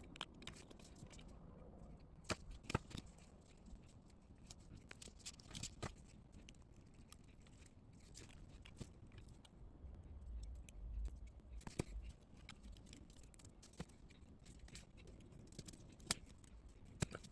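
Faint scattered clicks and taps of small electronic parts being handled while a monitor's screen and casing are fitted together, with a brief low rumble about two-thirds of the way through.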